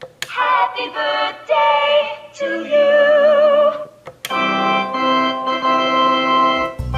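iChime electronic doorbell playing an organ tune: a run of notes with vibrato, then a long held chord that stops near the end.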